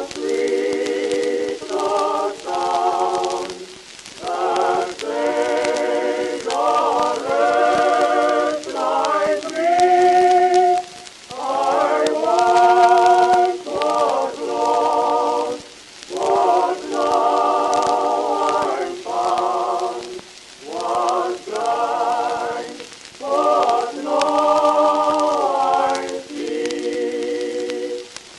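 Choir-like music: held notes with vibrato, sung in short phrases of one to two seconds separated by brief pauses.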